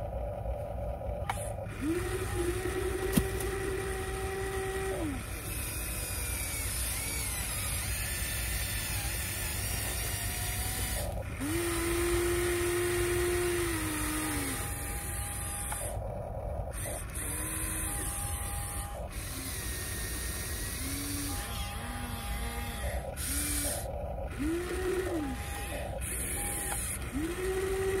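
Radio-controlled Huina metal excavator's electric motors whining as it works its boom, arm and bucket: a series of whines, each rising in pitch as a movement starts, holding for one to three seconds, then dropping as it stops, with a sharp click about three seconds in.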